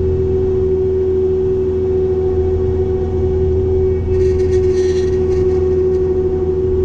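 Cat 262D skid steer running with its hydraulic Loflin brush cutter engaged: a steady engine drone with a strong even hum. A little over four seconds in, a short patch of crackling and snapping as the cutter chews through brush.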